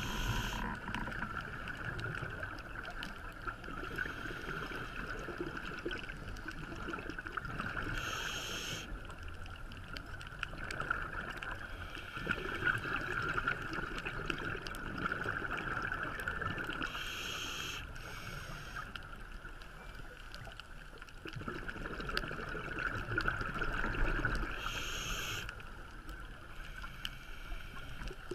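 Underwater sound recorded during a scuba dive: a steady hum, with three short bursts of bubbling hiss about eight seconds apart, the diver's exhaled regulator bubbles.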